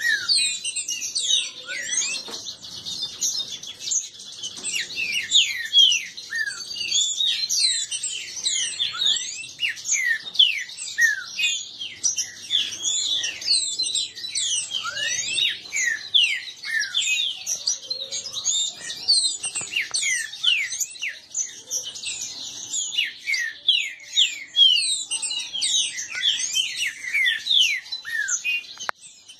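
Caged green-winged saltators (trinca-ferros) in a song duel: fast, overlapping short whistled phrases of quick sliding notes, packed closely with hardly a pause.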